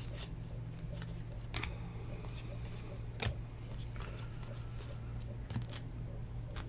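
Football trading cards being flipped one by one off a stack in the hands: a few soft, scattered ticks and slides of card stock, over a steady low hum.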